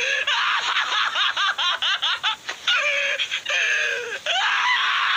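High-pitched laughter in quick choppy bursts, then two short held cries and a sustained scream near the end.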